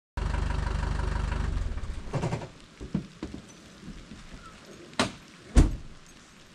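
A truck's engine running at idle, shut off about two seconds in. A few light clicks follow, then the driver's door opens with a sharp knock and slams shut with a heavy thud, the loudest sound.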